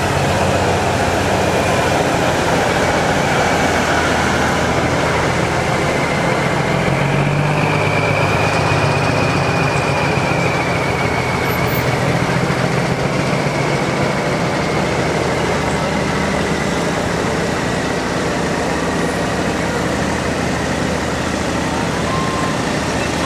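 Semi-truck's diesel engine running steadily at low speed, with a faint high whine that drifts slightly in pitch.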